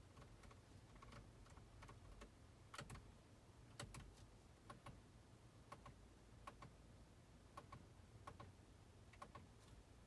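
Faint clicks of the factory steering-wheel buttons of a Mercedes Sprinter being pressed, often in quick pairs about a second apart, over a low steady hum, as they switch the aftermarket Kenwood head unit's source.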